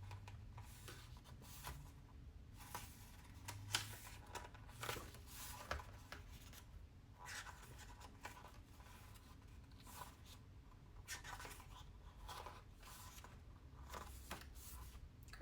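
Pages of a K-pop album photobook being turned and handled: a faint, irregular series of paper rustles and soft flicks.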